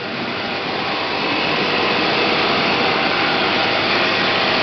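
Field harvesting machinery with its conveyor belts running: a steady mechanical drone that grows slightly louder over the first couple of seconds.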